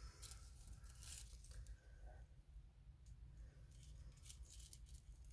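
Near silence, with a few short, faint rustles and tearing sounds from small cardboard or paper packaging being handled.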